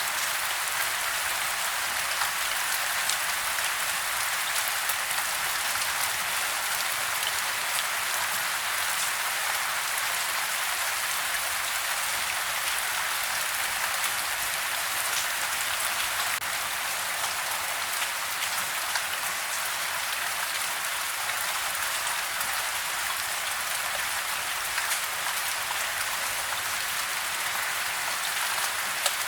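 Steady soft rain falling on a house, an even hiss of drops with fine pattering ticks.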